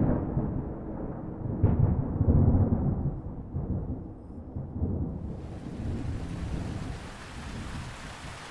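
Thunder rolling and rumbling, with a second crack about two seconds in, then fading. Steady rain sets in about five seconds in.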